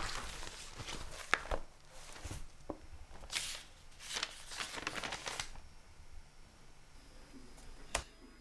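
Paper pages of a stapled booklet rustling as they are handled and turned, in a series of short bursts, with a sharp click near the end.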